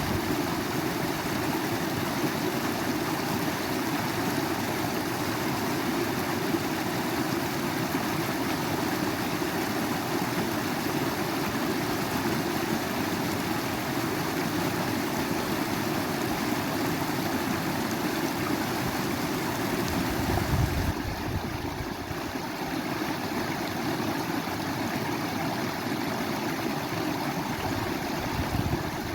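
Flowing water of a forest stream or waterfall, a steady rushing and gurgling. About two-thirds of the way through the sound shifts and gets slightly quieter, with brief low rumbles just before and near the end.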